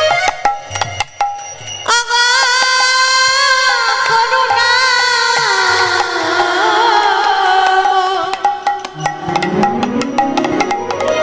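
Devotional kirtan music: a long, wavering held melodic note that enters about two seconds in and slowly sinks in pitch, with a rising slide near the end. Hand-drum and percussion strokes sound throughout.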